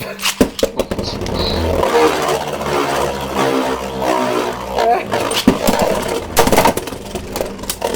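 Beyblade Burst spinning tops launched into a plastic stadium, whirring as they spin, with sharp clicks and clacks as they hit each other and the stadium walls.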